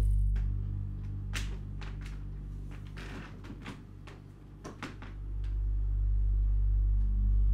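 Low steady drone that sinks in the middle and swells back near the end, with scattered soft knocks and clicks over it, typical of a horror film's dark-house sound design.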